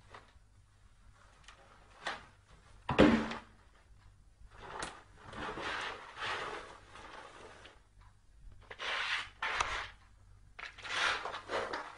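Cardboard box knocked and pushed about on a tiled floor by a cat with its head inside it: a loud thump about three seconds in, then several stretches of scraping and rustling cardboard with small knocks.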